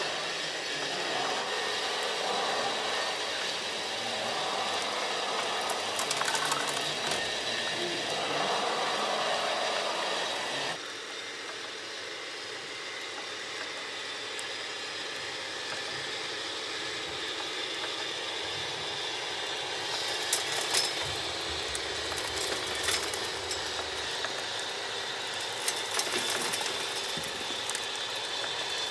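Radio-controlled model construction machines at work: the electric drives of a model Komatsu wheel loader and a model screening plant's conveyor, then a model Komatsu HD405 dump truck. A steady motor whine runs throughout, with rattling soil and stones. The sound drops suddenly about eleven seconds in, and a few sharp clicks come in the last third.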